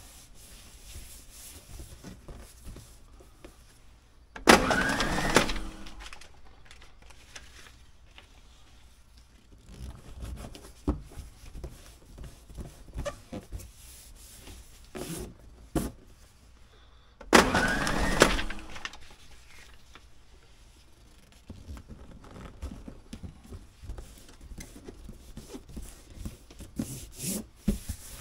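Paper packing tape pulled off and torn twice, each time a loud stretch of about a second, with softer rubbing and rustling of hands smoothing the tape onto a cardboard box in between.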